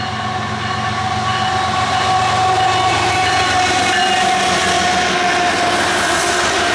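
Diesel locomotive passing close by, its engine rumbling under a steady multi-note horn chord that is held unbroken throughout.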